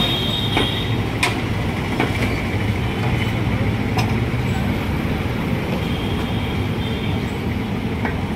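Steady street traffic rumble, with sharp metallic clinks every second or two from a ladle striking a steel plate and pot as food is served.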